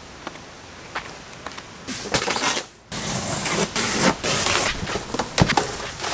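Cardboard shipping box being handled and opened, with scraping and crinkling of cardboard and plastic packing and sharp knocks of the flaps. It starts about two seconds in, after a few faint clicks.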